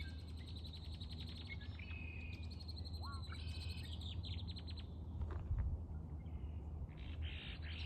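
Several birds singing and chirping, with rapid trills and short whistled notes, over a low steady hum.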